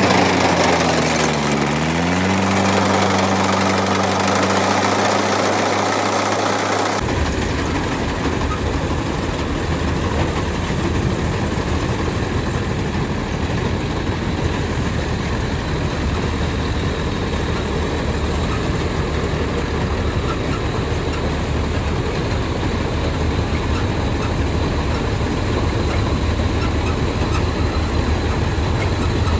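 Mahindra Arjun Novo 605 DI tractor's four-cylinder diesel engine running under load, driving a Gahir Nippy 45 mini combine harvester attachment as it cuts and threshes ripe paddy. The engine pitch dips and rises about a second and a half in. About seven seconds in, the sound cuts abruptly to a denser, steady machine rumble.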